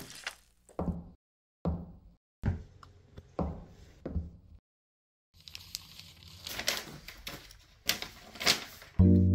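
Footsteps, about five evenly spaced steps on a hard floor, then the crackle and rustle of a folded paper note being handled and opened.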